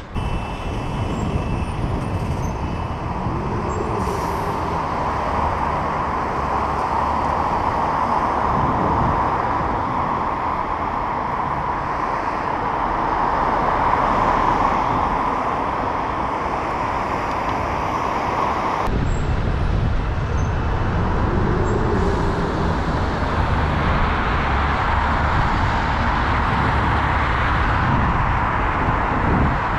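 Steady wind rush and road traffic noise picked up by a helmet-mounted action camera on a moving bicycle, with cars passing close by. The sound changes abruptly about two-thirds of the way through.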